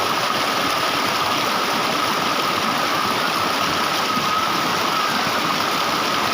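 Steady rushing of falling and flowing water from the Coban Rondo waterfall and its stream, an even wash without a break, with a faint steady high tone running over it.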